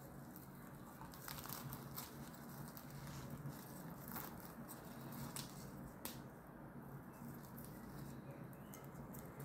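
A flaky, layered paratha being torn apart by hand, its crisp layers giving faint crinkly tearing and crackling with a few sharper crackles scattered through. A faint low steady hum runs underneath.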